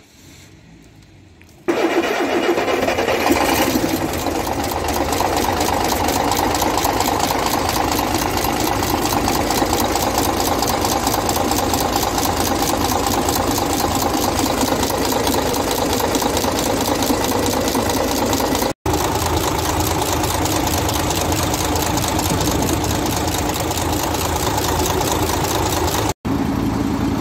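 MAN truck's six-cylinder diesel engine catching about two seconds in, running a little higher for a moment, then idling steadily with its rocker covers off. It is the first start after new head gaskets, a new piston and rings, and a tappet adjustment, run open so that oil can be seen reaching the rocker arms.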